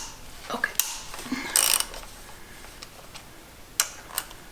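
A few separate clicks and clinks of a socket ratchet and bolts as engine-bay bolts are worked loose, with a short scrape about a second and a half in.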